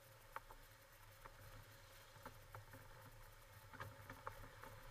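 Faint, steady low drone of a 4x4 driving slowly over a rough off-road track, heard from inside the cab, with a scatter of sharp clicks and knocks at irregular moments.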